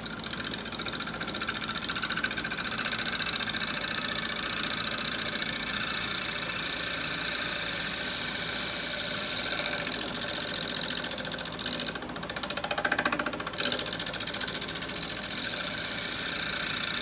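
Wood lathe spinning a natural-edge pear bowl while a turning tool takes a light scraping cut, a steady hiss of the cut with a rapid, even rhythmic pulse. It grows louder for about a second and a half, roughly twelve seconds in.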